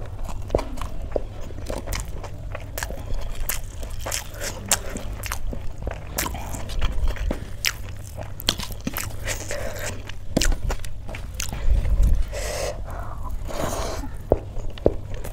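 Close-up eating sounds: wet chewing with many short crunching, crackling bites. Fingers mix rice against a steel plate.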